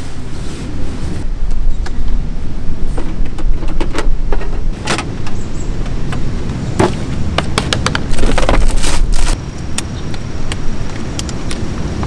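Wind rumbling on the microphone, with a run of clicks, knocks and clatters from camping cookware and gear being handled in a car's open boot, heaviest around the middle.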